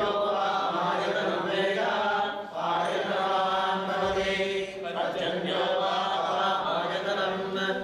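Men chanting Vedic mantras together in a steady recitation, with short pauses for breath about two and a half and five seconds in.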